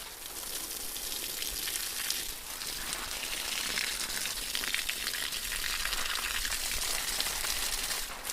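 A steady, crackling hiss with no voice in it.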